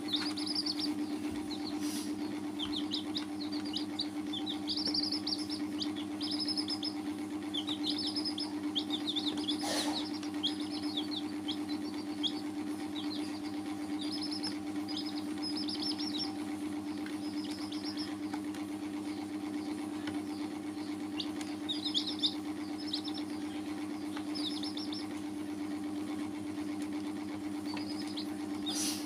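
Domestic chicks peeping: short, high, falling cheeps in quick runs, coming on and off throughout, over a steady low hum.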